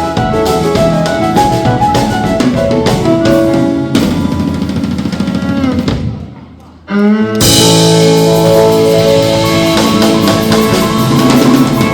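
Live roots band with a drum kit playing loudly. About six seconds in the sound fades briefly into a short break, then the full band comes crashing back in about a second later.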